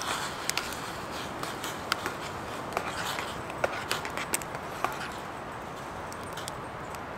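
A wood fire crackling in a Bushbox folding steel box stove under a pot of water close to the boil, while a spoon stirs broth in the metal pot: a steady hiss with scattered sharp clicks and pops.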